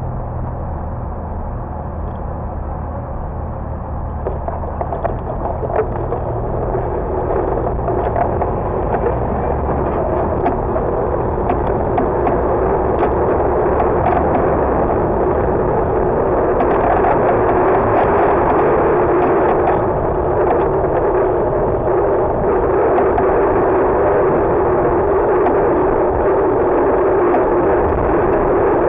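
City traffic with a low engine hum while stopped at a red light, then steady wind and road rumble on a bicycle-mounted camera. It grows louder about four seconds in as the bike gets moving, with scattered clicks and rattles from the ride.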